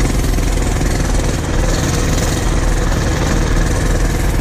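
Small single-cylinder four-stroke minibike engine running steadily close by, with an even, unbroken engine note.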